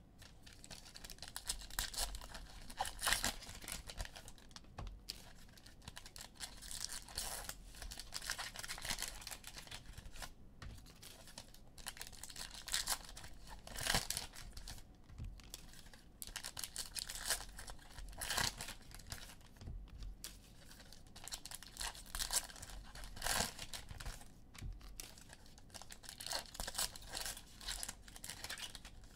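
Foil trading card pack wrappers being torn open and crinkled, with the cards inside handled and shuffled: a continuous run of scratchy rustling with many short sharp crackles.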